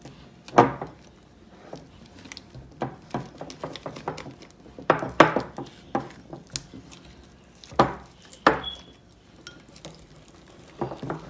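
Spoons clinking and scraping against glass bowls as slime is stirred: irregular clicks and knocks, with a few louder clinks.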